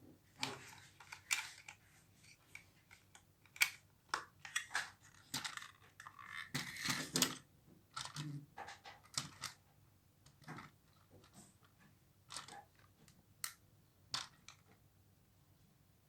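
Hands handling the unboxed RC rock crawler and its packaging: scattered irregular clicks and taps of plastic parts, with a brief burst of rustling about seven seconds in.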